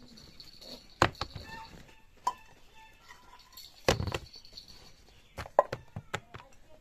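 Vegetables dropped by hand into a plastic tray: a few scattered knocks, a heavier thud about four seconds in as brinjals land, then a quick run of knocks near the end as tomatoes tumble in.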